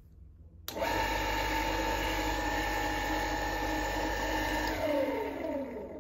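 Fusan FB2 milling head's single-phase motor and oil-bath six-speed gearbox switched on with a sudden start, running steadily for about four seconds, then switched off and spinning down, its pitch falling as it slows.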